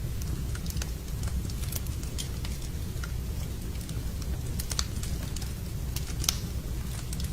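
Wood fire burning in a fireplace: a steady low rumble of the flames with irregular crackles and pops, the sharpest pop about six seconds in.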